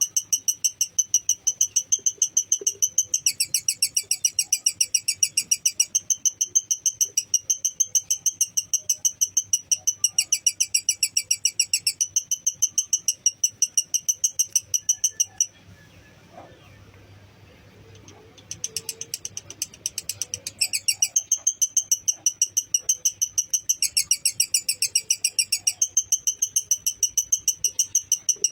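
Lovebird in long 'ngekek' chattering: rapid, evenly repeated high chirps, breaking off for about three seconds midway and then resuming.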